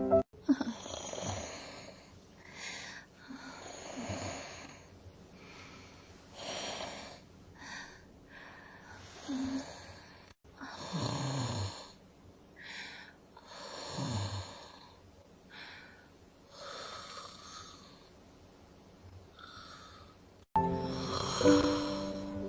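Someone snoring slowly, breathing in and out in a long run of separate snores. A few of them have a low snore that drops in pitch. Music comes in near the end.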